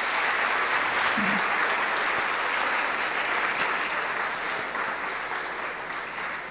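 Audience applauding: dense, steady clapping that fades away toward the end.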